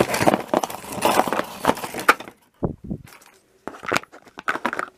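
Cardboard box and packaging rustling and scraping as it is handled, then a couple of dull thumps and a string of light clicks as hard plastic Plarail toy parts are knocked and fitted together.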